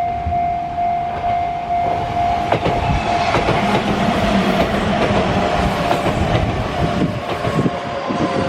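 Japanese level-crossing alarm bell ringing about twice a second. From about two seconds in, a Kintetsu Minami-Osaka Line train passes through the crossing, its wheels clacking over the rail joints, and it fades near the end while the bell keeps ringing.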